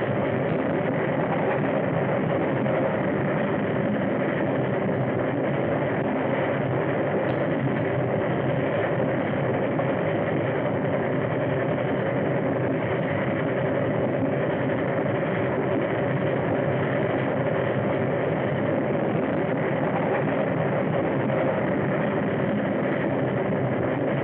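Train running at speed, a steady, unbroken rumbling noise on an old film soundtrack.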